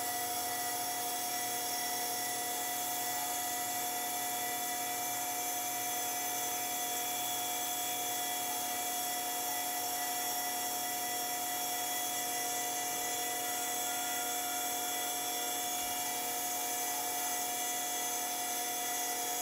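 Small lathe motor running at a steady high whine, spinning a stainless steel ring core in a collet chuck while it is held against wet Zona polishing paper.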